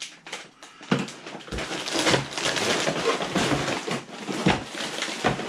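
Plastic bags of Lego pieces crinkling and rustling as they are handled, with irregular clicks and knocks from the loose parts and the box.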